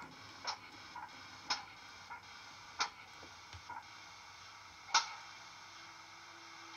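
Model steam locomotive DCC sound: a GWR Hall's exhaust chuffs from a Jamie Goodman sound file, played through a megabass speaker in the tender of a Bachmann OO model. Slow, sharp chuffs about once a second with fainter clanks between, spacing out towards the end, the last about two seconds after the one before, with a faint low hum coming in near the end.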